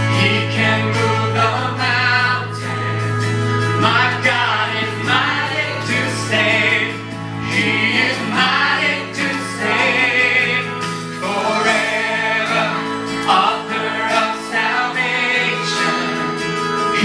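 Gospel music: a choir singing over a held low bass note.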